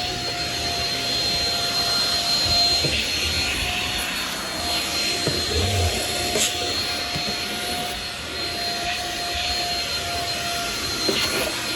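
Shark Rocket stick vacuum running steadily while vacuuming carpeted stairs with its power head, a constant whine with a high-pitched tone over the airflow noise.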